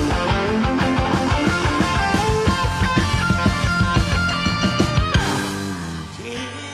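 Rock band playing an instrumental passage with hard-hit drums and electric guitar. About five seconds in the full band drops away with a falling pitch glide, leaving a quieter, sparse passage.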